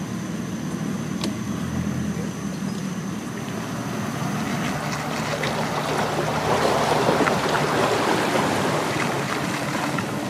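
A bass boat being hauled out of the water up a launch ramp on its trailer: a steady engine hum under the rush of water running off the hull, the rushing growing louder about halfway through.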